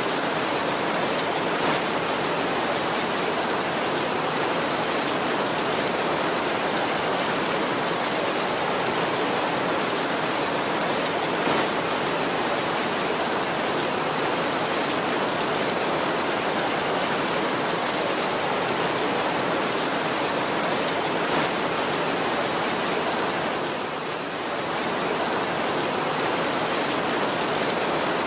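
Heavy rain falling steadily as an even hiss, with no thunder, dipping slightly in loudness for a moment near the end.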